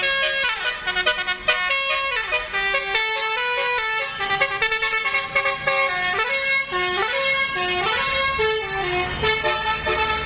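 Bus telolet horn playing a stepping, multi-note tune, several horn tones sounding together. A low rumble comes up near the end.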